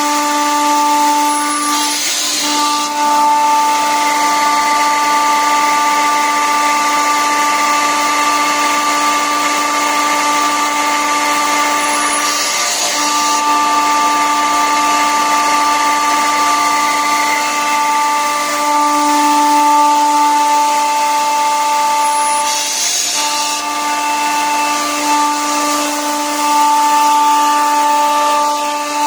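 Kaeser ASD 40 rotary screw air compressor running, a steady loud whine made of several held tones. Three short hisses of air break in, about ten seconds apart.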